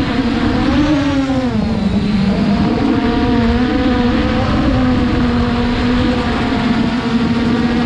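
Quadcopter drone's propellers and motors humming steadily, the pitch rising and then dropping about a second in as it manoeuvres, with wind noise on the microphone.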